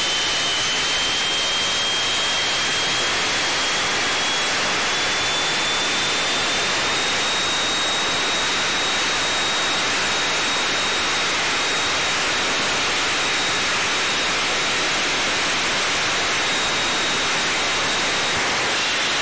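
Jet funny car's turbine engine running at the starting line: a dense, steady rushing noise with a thin high whine that climbs slowly for the first several seconds, then holds level.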